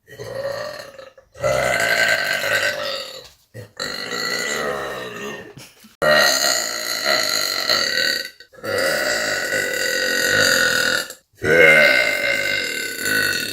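A woman belching repeatedly: about six long burps in a row, each lasting one to two and a half seconds, with short gaps between them.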